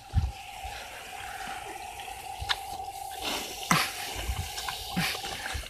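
Garden hose spraying water onto a pig's back and head: a steady hiss of spray with a thin steady tone under it, and a couple of sharp knocks near the middle.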